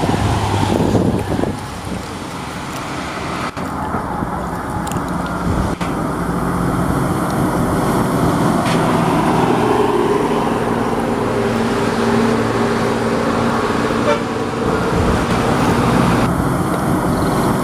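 Motor vehicle engine running steadily, with a held, horn-like tone in the second half.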